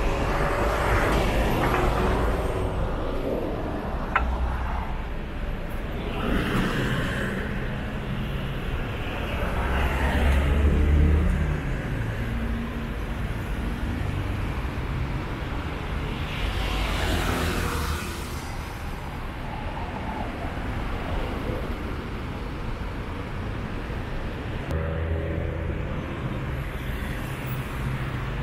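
Road traffic: a steady rumble of car engines with vehicles passing several times, loudest about ten seconds in.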